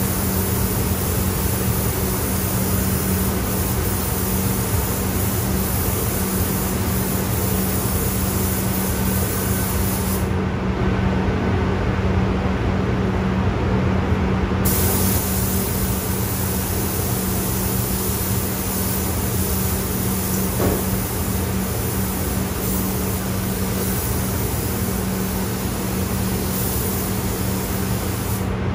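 Paint booth ventilation fans running with a steady low hum, under the hiss of an air-powered paint spray gun. The hiss stops for about four seconds roughly ten seconds in, then starts again and stops once more near the end.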